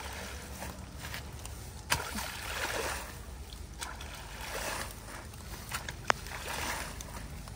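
Long-handled tool swept and stirred through a shallow flooded ditch: repeated swishes and sloshes of water, with two sharp knocks, about two seconds in and near the end.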